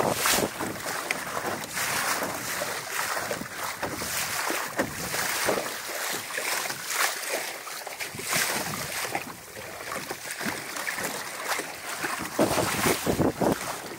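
Water splashing and lapping against the hull of a small sailboat under way, with wind buffeting the microphone. The splashes come irregularly over a steady hiss, with a run of louder ones near the end.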